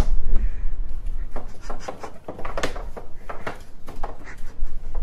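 A round woven lid scraping and knocking in short, irregular strokes across a tile floor as a turtle underneath pushes it along.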